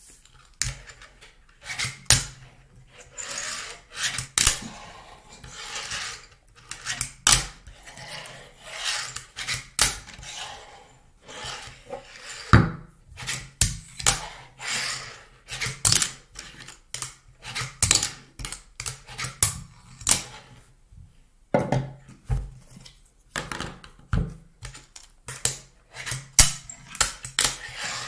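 Fingerboard being skated by hand on a tabletop: the deck and wheels clack down again and again, with short stretches of rolling and scraping as it grinds along a metal rail.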